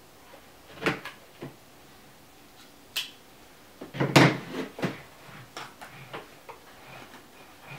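Product packaging being opened and handled by hand: scattered knocks, clicks and rustles, with a sharp click about three seconds in and the loudest thump about four seconds in.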